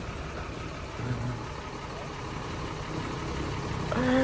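Mercedes-Benz 1417 truck's diesel engine running steadily at low revs while the truck is manoeuvred. A man gives a short call near the end.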